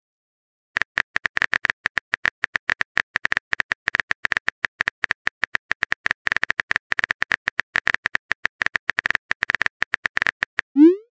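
Texting-story app keyboard click sound effect: rapid, irregular typing taps for about ten seconds as a message is typed, ending with a short rising swoosh as it is sent.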